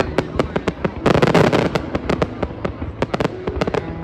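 Fireworks bursting overhead: a rapid series of sharp bangs, thickening into a dense crackling salvo about a second in.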